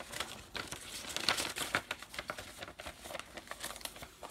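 Paper and packaging rustling and crinkling in a series of short crackles as items are handled and moved aside.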